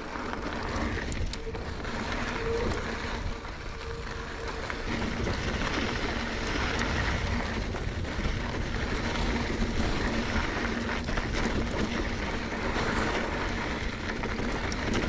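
Mountain bike riding fast down a rocky dirt trail: a steady rush of wind over the microphone and tyres rolling over dirt and rock, with scattered clicks and rattles from the bike and a faint steady hum underneath.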